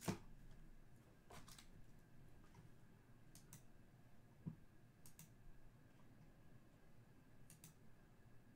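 Faint computer mouse clicks: a sharp click at the start, then quick pairs of clicks every couple of seconds, over near-silent room tone.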